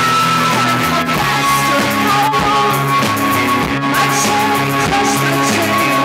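Rock music led by guitar, with held chords that change in a regular pattern.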